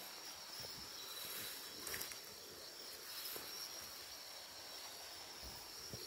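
Night insects trilling steadily at a high pitch over a faint even hiss, with a light click about two seconds in.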